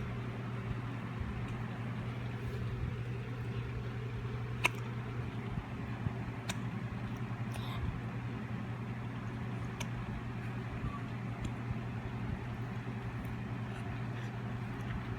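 A husky hiccuping: a handful of short, sharp hics one to two seconds apart, over a steady low hum.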